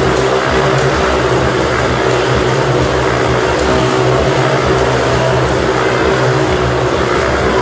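Motorcycles circling inside a steel mesh globe of death, their engines running at a steady pitch.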